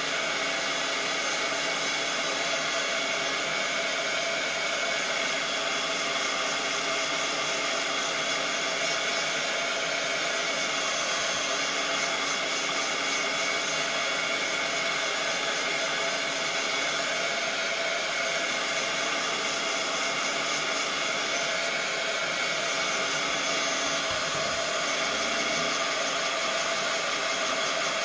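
Handheld craft heat tool running steadily, its fan blowing hot air with an even whir and hiss, drying a freshly painted-over napkin layer.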